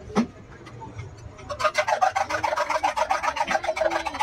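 A spoon whisking eggs in a small steel tumbler, scraping and clinking against the metal in a fast, even rhythm of about nine strokes a second. It starts about a second and a half in.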